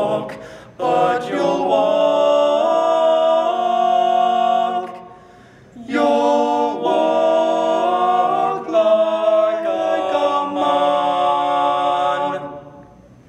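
Three male voices singing a cappella in close harmony: two phrases with a short breath between them about five seconds in, the last ending on a held chord that fades out near the end.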